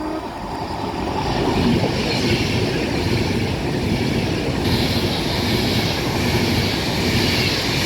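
A train running past on the rails: a steady rush of wheel and rail noise that swells over the first two seconds and turns hissier about halfway through.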